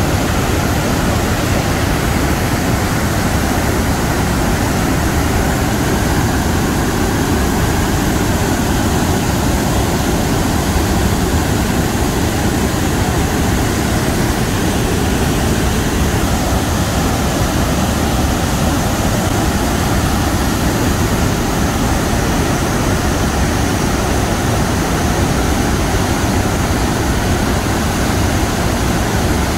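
Athabasca Falls, the Athabasca River thundering over the falls and into its narrow gorge: a loud, steady rush of falling water.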